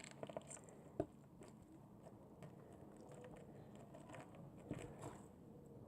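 Mostly near silence, with a light knock about a second in and a few faint clicks: handling sounds of slime being pressed with a potato masher.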